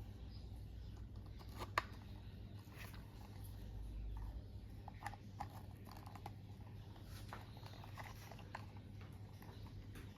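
Small plastic clicks and light handling noises of toy parts being fitted together, with one sharper click about two seconds in, over a low steady hum.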